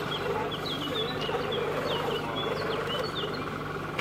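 Small birds chirping in quick, short high notes, over a steady low hum.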